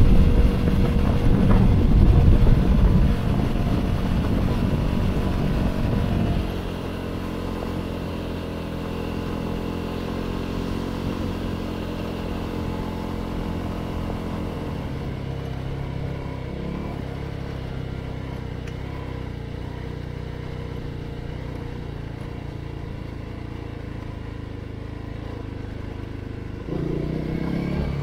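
Motorcycle engine running while riding, with a steady engine note. It is louder and rougher for the first six seconds or so, and near the end the engine picks up and the note rises.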